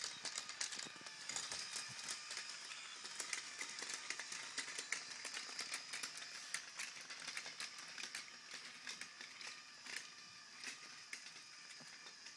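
Lego electric motor driving the plastic gears and moving mechanisms of a rolling parade of Lego cars: a steady high-pitched whine under a dense, rapid clatter of plastic parts clicking, easing slightly toward the end.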